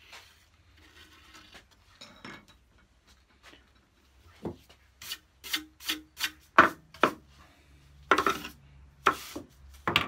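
A saw file scraping across the steel teeth of a handsaw: after a few faint seconds, a run of about ten short, quick strokes with a slight metallic ring, two of them a little longer near the end.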